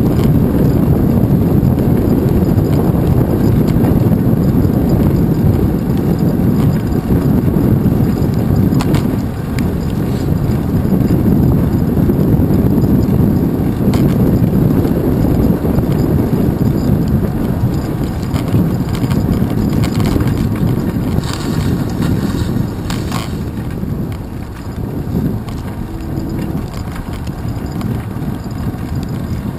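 Wind rushing over the microphone of a handlebar-mounted GoPro on a moving bicycle, together with rumbling tyre noise on a wet bridge path: a loud, steady low rumble. A few sharp knocks come through as the bike rolls over bumps, and the rumble eases a little near the end.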